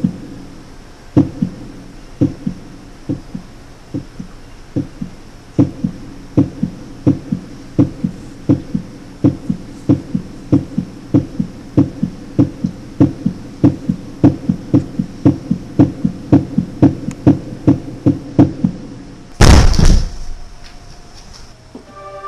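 Heartbeat sound effect: dull, low thumps that start a second or so apart and speed up to about two or three a second, like a racing heart. Near the end there is a single loud crash, and then the beats stop.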